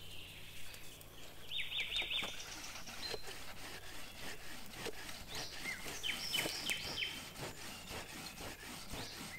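An empty plastic PET bottle is squeezed over and over as a hand bellows, its crinkling and rubbing mixed with puffs of air blown onto a smouldering campfire to bring the dying fire back to flame. A small bird chirps in short runs twice.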